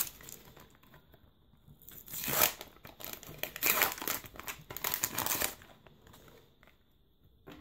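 Sticker packet wrapper crinkling and tearing as it is opened and the stickers are pulled out, in several short bursts between about two and five and a half seconds in.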